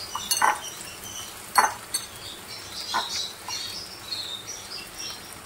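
Spatula knocking and scraping in a pan of fried potatoes with boiled spinach just added: about half a dozen separate knocks over a faint sizzle of oil.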